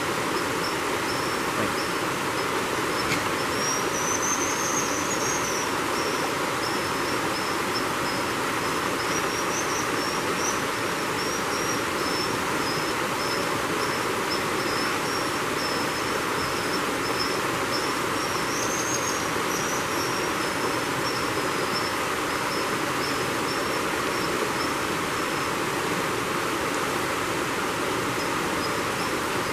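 Creek water rushing over rocks as a steady noise, with an unbroken run of high, thin calls from American dipper fledglings over it. The calls swell into brief rising trills about four seconds in and again a little past halfway.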